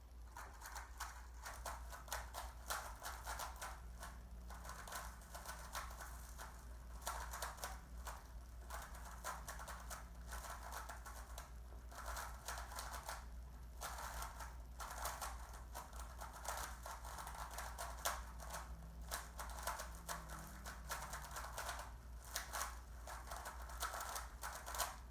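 A Rubik's Cube being turned rapidly during a timed speed solve of about 25 seconds: a continuous stream of quick plastic clicks and rattles that stops near the end.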